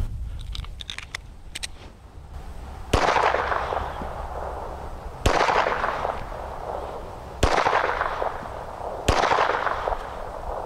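Phoenix Arms HP25 .25 ACP semi-automatic pistol firing four shots, spaced about two seconds apart, each a sharp crack that trails off over about a second.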